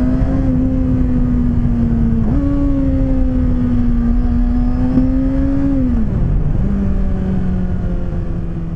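Kawasaki Ninja ZX-6R 636's inline-four engine running at steady revs under way. The revs jump up about two seconds in, hold, then drop about six seconds in.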